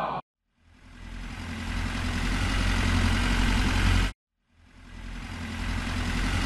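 Dubbed tractor engine sound: a steady low engine rumble that fades in, cuts off abruptly about four seconds in, and fades back in half a second later.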